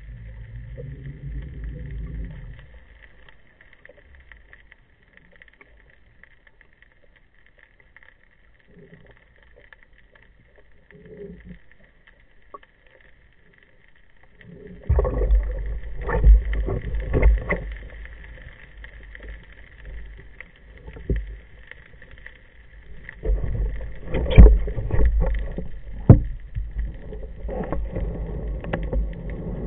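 Muffled underwater sound through a camera's waterproof housing during a spearfishing dive: a long quiet stretch, then from about halfway a run of heavy thumps and knocks as a speared gilthead sea bream is grabbed and handled. A faint steady whine runs underneath.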